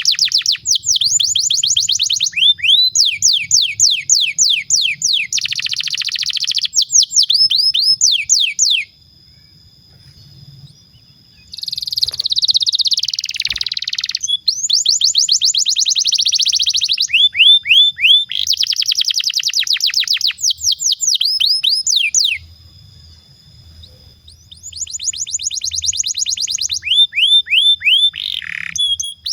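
Domestic canary singing long rolling trills: fast runs of repeated notes, many sweeping down in pitch, in long phrases broken twice by pauses of a couple of seconds.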